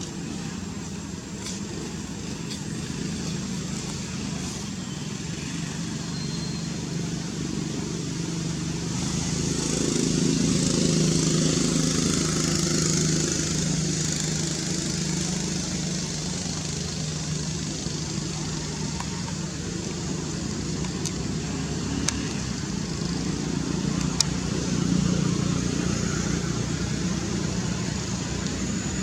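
A motor engine running steadily, growing louder about ten seconds in and again near the end.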